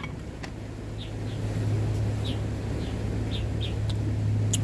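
Short, falling bird chirps repeating every half second or so over a steady low hum, with a sharp click near the end.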